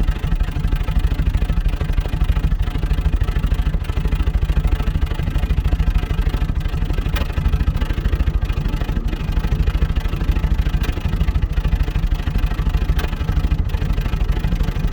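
Series III Land Rover engine running steadily at idle with an uneven beat, dipping and stumbling now and then: the sign of an intermittent misfire.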